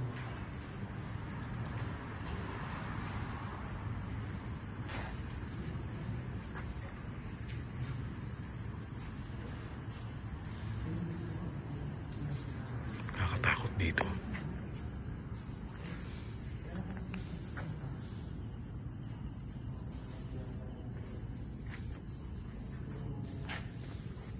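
Steady high-pitched chirring of crickets. Underneath there is a low rumble, and a brief louder thump comes just past halfway.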